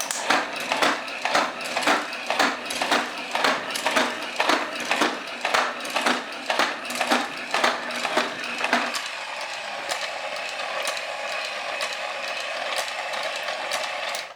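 Battery-powered 3D printed Mr. Monster toy robot walking: its small electric motor and plastic gearbox whir while the legs clack about three times a second. About nine seconds in the clacking stops and the gear whir runs on alone.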